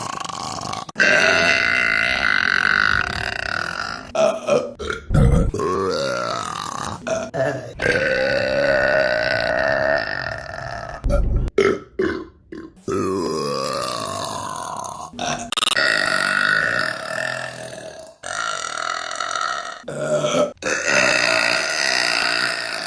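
A run of long, drawn-out burps by different women, one after another, each lasting two to three seconds. Abrupt cuts separate the burps.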